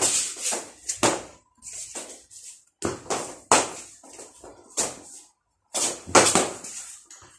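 Sabre sparring with homemade padded sabres: quick, irregular scuffs and stamps of shoes on a stone-tiled floor mixed with taps of the padded blades meeting, about a dozen sharp sounds, the loudest about three and a half and six seconds in.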